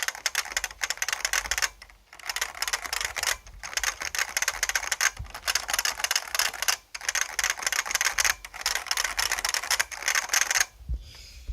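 Fast typing on a Codegen CG-101F keyboard with clicky Futaba switches: dense clicking keystrokes in several bursts with brief pauses between them, stopping shortly before the end.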